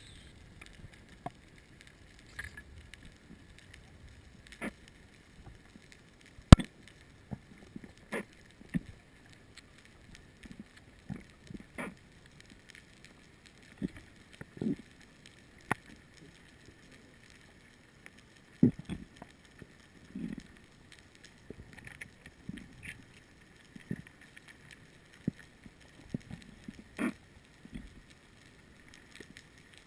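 Underwater sound: scattered sharp clicks and short dull knocks at irregular intervals over a faint watery background, the sharpest click about six and a half seconds in.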